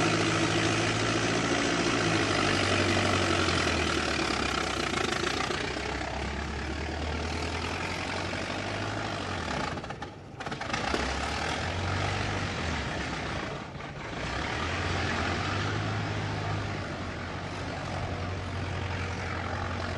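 Old car engine running, a low drone whose pitch shifts up and down several times. Its loudness dips briefly twice, about halfway through and again about two-thirds through.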